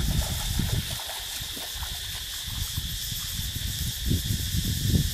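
Outdoor ambience by a shallow jungle stream: water running, a steady high insect drone, and an irregular low rumble on the microphone.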